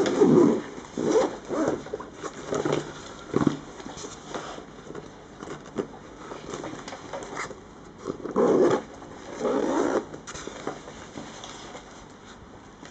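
Olympus camera backpack being handled and unzipped: irregular rustling and brushing of its fabric and the zip being pulled open, with the longest stretches about eight and nine and a half seconds in.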